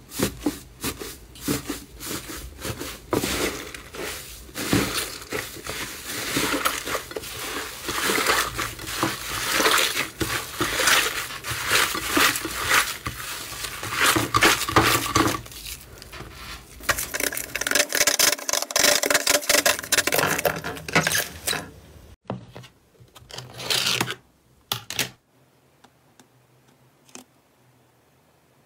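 Hands squeezing, pressing and tearing a thick purple 'tofu dregs' textured slime, giving dense wet clicking and crackling. The sound thins to a few clicks about 22 seconds in and stops a few seconds later.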